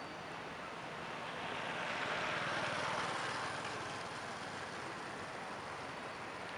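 Steady outdoor background noise with no clear voice or tone, swelling into a smooth whoosh about two seconds in and fading back by about four and a half seconds.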